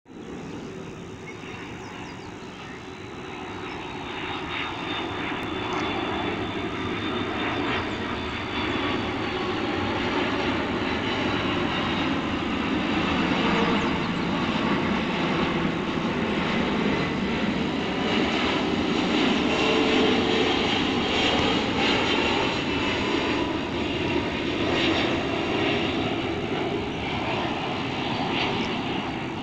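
Airbus A330-200's twin General Electric CF6-80E1 turbofans on final approach to land, a continuous jet rumble that grows steadily louder as the airliner comes nearer.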